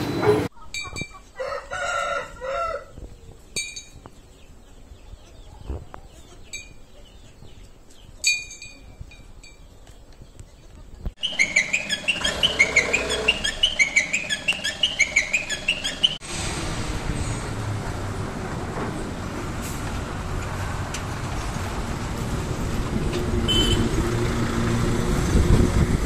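Chickens: a crowing call and scattered clucks, then a spell of quick repeated chirping. After that, a steady wind-like rumble.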